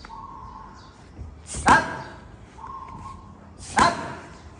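Two sharp punches from a boxing glove landing on a focus mitt, about two seconds apart, each a loud slap with a short ring after it.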